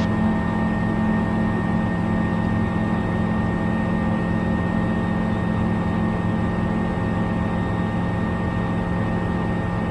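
Bristell light aircraft's Rotax 914 turbocharged flat-four engine and propeller running steadily at climb power just after takeoff, heard from inside the cockpit as an even drone with several fixed tones.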